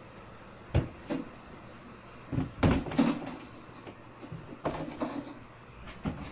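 About half a dozen sharp knocks and thumps of someone moving about a small room, from a door or cupboard shutting and things being handled on a desk. The strongest come about two and a half to three seconds in.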